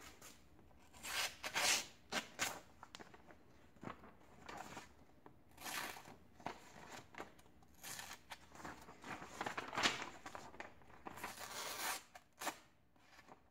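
Folding knife's blade slicing through a sheet of paper held in the hand, in several short strokes with the paper rustling and tearing between them: a paper-slicing check of the edge after cutting cardboard.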